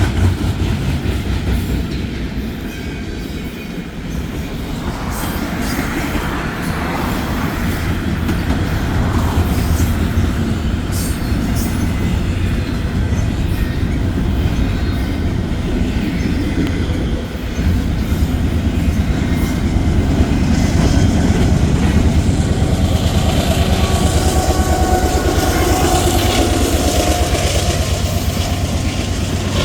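Union Pacific SD70ACe diesel-electric locomotive with its turbocharged 16-cylinder two-stroke EMD engine working under load, a steady low rumble with a turbo whine that rises and falls in pitch, and train wheels clacking over the rails. It grows a little louder in the second half.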